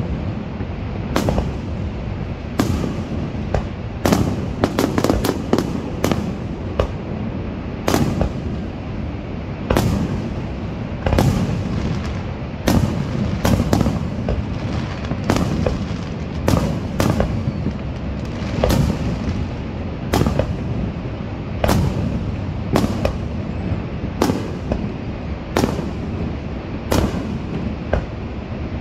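Aerial fireworks shells bursting in an irregular series of bangs, roughly one a second, with a quick cluster of reports about four to six seconds in, over a steady rushing noise.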